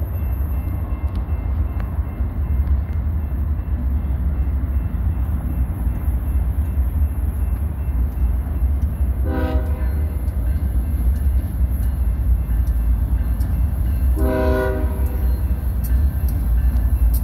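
BNSF diesel freight locomotives, led by a GE Dash 9-44CW, running with a steady deep rumble as they approach. The lead unit sounds its horn twice: a short blast about halfway through and a slightly longer one a few seconds later.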